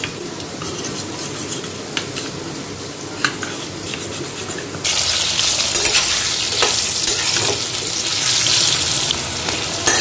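A spoon stirring and clinking in a small steel bowl of spice mix, then, about five seconds in, a sudden loud sizzle of potato wedges frying in hot oil in a stainless steel kadai, stirred with a steel spatula.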